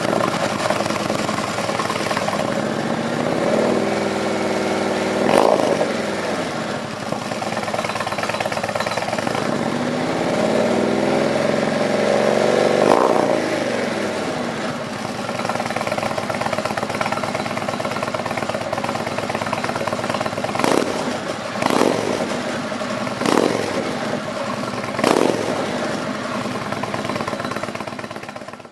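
Indian Chieftain's V-twin engine running through Vance & Hines slip-on mufflers: idling, with two slow rev-ups that rise and fall, then four short, sharp throttle blips in the second half.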